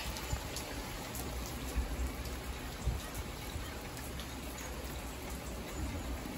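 Rain hitting a car's windshield and roof, heard from inside the cabin while driving at freeway speed, over a steady low road rumble. Scattered drop ticks on the glass.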